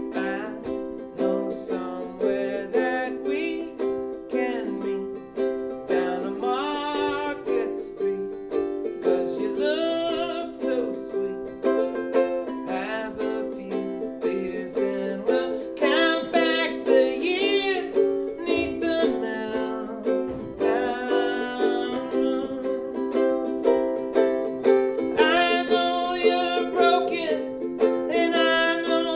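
A ukulele strummed in steady chords with a man singing over it.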